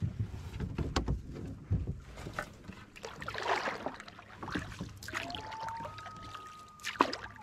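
Canoe being paddled: paddle strokes with water swishing, and sharp knocks of wood against the hull near the start and again near the end. About five seconds in, a thin whistle-like tone comes in, steps up in pitch and holds.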